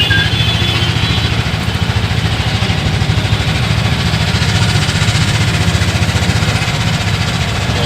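A close motor-vehicle engine running steadily with a fast, even low pulsing, over a steady hiss.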